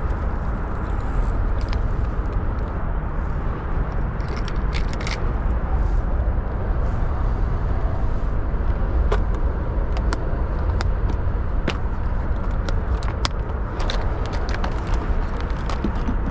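Steady wind rumbling on the microphone, heaviest in the low end, with scattered small clicks and knocks over it.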